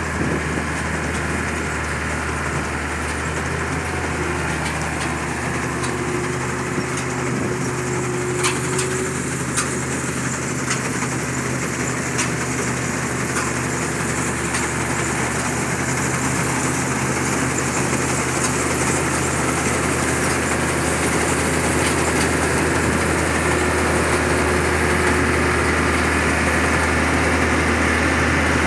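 CLAAS Crop Tiger combine harvester running steadily while cutting soybean. A few sharp clicks come about a third of the way in, and the machine grows slightly louder toward the end.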